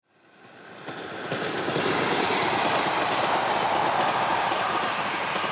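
Passenger train rolling past close by, a steady rumble of coach wheels with a fast clatter over the rail joints, fading in over the first second or so.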